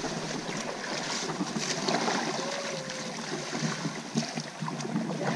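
River water splashing and sloshing as buckets of water are thrown over elephants bathing in the muddy river.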